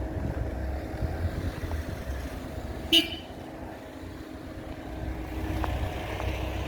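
Road traffic rumbling by, with one brief, sharp vehicle horn toot about three seconds in.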